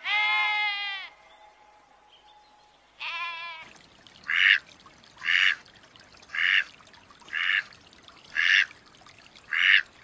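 A sheep bleats twice: one long bleat at the start and a shorter one about three seconds in. Then a duck gives six short, harsh quacks, about one a second.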